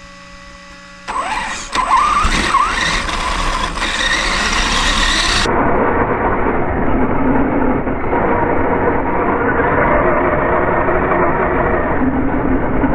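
RC car pulling away, heard from a camera riding on it. About a second in there is a sudden loud start with a brief rising whine, then steady rumbling tyre and wind noise. About halfway through the sound turns duller and deeper, as slowed-down slow-motion audio.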